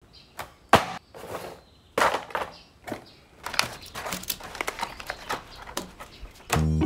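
Moulded plastic packaging tray and plastic toy handled on a wooden workbench: a sharp knock just under a second in, another at two seconds, then a run of light clicks and rattles. Acoustic guitar music comes in near the end.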